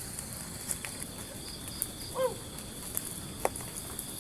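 Tropical forest ambience: insects droning steadily at a high pitch, with scattered light clicks and one short call that falls in pitch about two seconds in.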